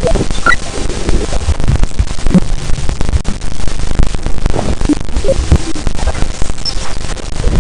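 Saturn's radio and plasma waves converted into sound: loud crackling static over a low rumble, with a few brief chirps.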